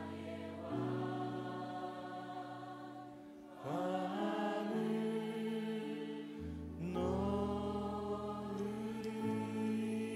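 Slow, soft worship-band music: held chords over low notes from an Alleva-Coppolo LG5 five-string electric bass, the harmony changing every few seconds.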